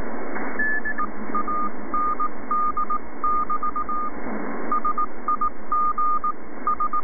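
Morse code (CW) from an amateur station on the 20-metre band, received through an LD-1B software-defined radio front end: a single tone keyed in dots and dashes over steady band hiss. A higher tone sounds briefly just before the first second as the receiver is tuned onto the signal. The CW filter is not yet switched in, so the hiss is wide.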